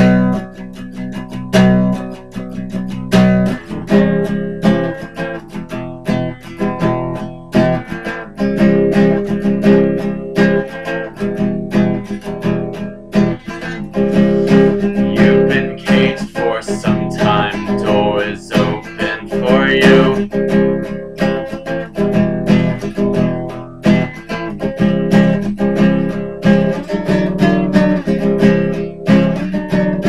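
Acoustic guitar strummed in a steady rhythm, playing chords of a folk-style song.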